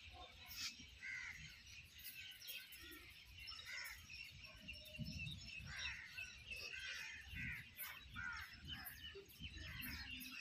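Many birds chirping and calling at once, with low gusts of wind rumbling on the microphone.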